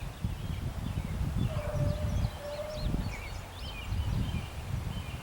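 Wind gusting on the microphone and birds chirping, with a faint distant locomotive horn sounding two blasts, one right after the other, about a second and a half in.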